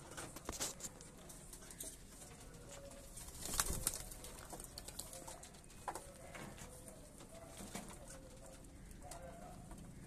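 Domestic pigeons cooing softly while they feed from a metal dish, with scattered sharp clicks of pecking and a brief louder rustle of movement about three and a half seconds in.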